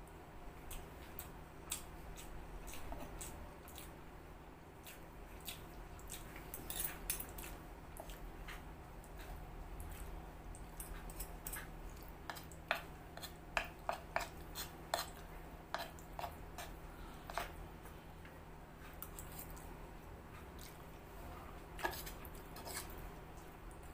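Close-up eating sounds: soft wet chewing of noodles, with scattered sharp clicks of a steel fork and spoon against a clay plate, coming thickest around the middle. A steady low hum runs underneath.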